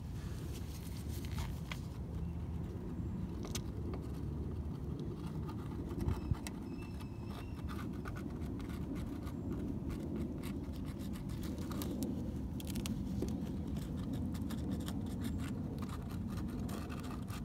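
Scraping and small clicks from hands working repair material against a car body, over a steady low rumble.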